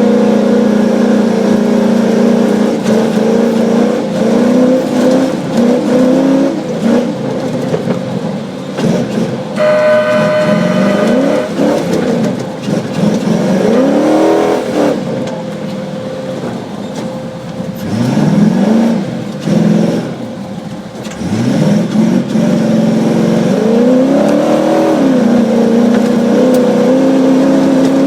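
A Tomcat off-road racer's engine, heard from inside the car, revving hard and repeatedly rising and falling in pitch as it accelerates, shifts and backs off. About a third of the way in, a steady high tone sounds for about two seconds.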